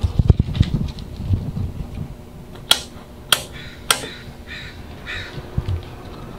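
Three sharp clicks about half a second apart from toggle switches being flipped on the overhead cab control panel of a 1995 Mitsubishi Fuso Canter fire truck, followed by two short harsh calls. Low bumps and rumble fill the first second or so.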